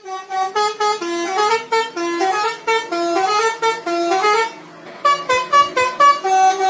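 Indonesian 'telolet' bus horn, a set of musical air horns on a tour coach, playing a quick tune of short stepped notes in chords. It breaks off about four and a half seconds in and starts the tune again about half a second later.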